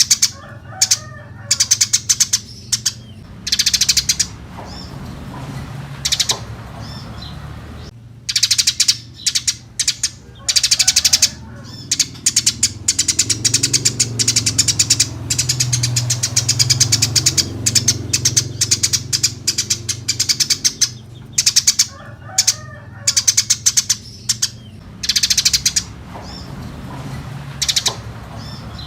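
Eurasian tree sparrows chirping busily, in loud, rapid runs of short chirps that come in quick succession and with brief gaps, over a steady low hum.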